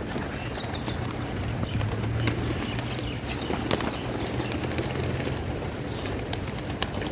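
A flock of domestic pigeons cooing and flapping their wings, with scattered sharp taps over a steady low hum.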